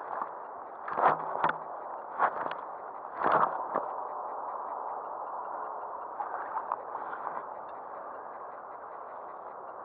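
Water gurgling and splashing, with several short sharp sounds in the first four seconds over a steady hiss.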